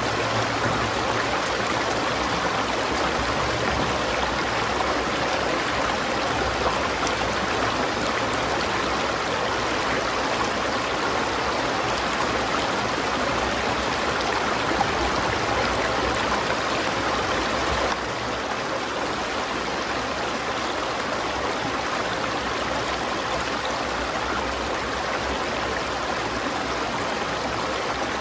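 River water flowing steadily over rocks, an even rushing sound. About eighteen seconds in it drops a little in loudness at a sudden cut and carries on.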